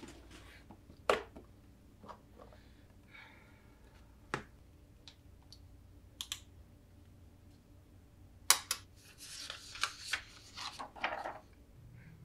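Scattered clicks and knocks of a clear plastic clipboard storage case being unlatched and opened on a glass desk, with scissors and a marker shifting inside. About eight seconds in come two sharp clicks, then a few seconds of paper rustling as a sheet is taken out and handled.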